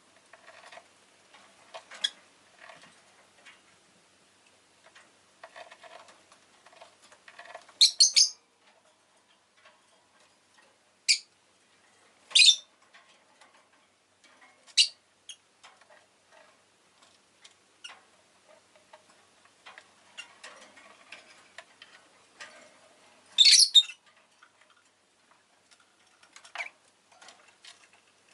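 Rosy-faced lovebird giving short, shrill calls every few seconds, loudest about eight and twenty-three seconds in, between faint clicks and rustling.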